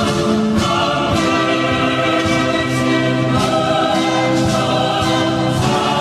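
Background music: a choir singing long held chords with accompaniment.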